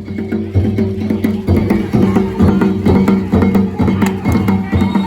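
Danjiri festival music: drums and metal hand gongs struck in a rapid, driving rhythm.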